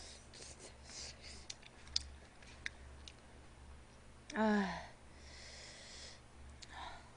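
Light clicks of a fork against a plate and soft mouth noises of eating. About four seconds in comes a short vocal sound that falls in pitch, the loudest thing heard.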